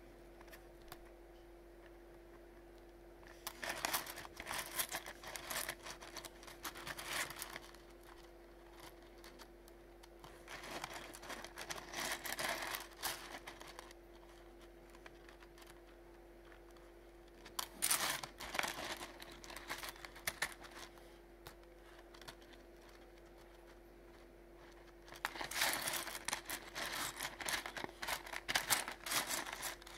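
Fingers rummaging through a pile of wet rough opal pieces on a plastic sheet: four bursts of a few seconds each of crinkling plastic and small stones clicking against each other, over a steady faint hum.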